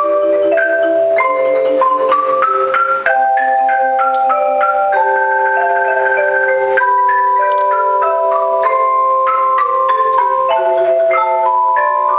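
Live mallet-percussion music: struck, ringing notes forming a melody over held lower notes, with runs that climb step by step.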